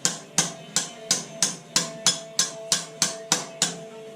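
Hammer striking a socket against steel, about eleven evenly spaced ringing blows at roughly three a second, stopping near the end. The blows are driving hydraulic lines out of a forklift transmission pump, held tight by old, swollen O-rings.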